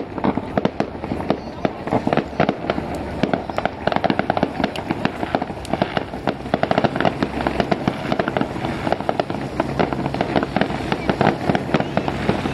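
Aerial fireworks bursting: a continuous rapid crackle of popping reports, many pops a second, without let-up.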